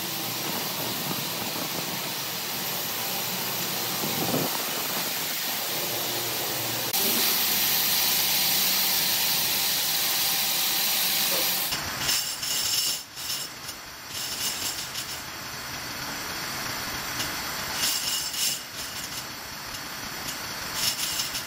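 Workshop noise in three parts. First a steady machine hiss, then the louder, even churning of a vibratory polishing machine working a load of small metal parts in a wet bowl. Last comes an uneven stretch of knocks and clatter as racks and trays of metal parts are handled at an oven.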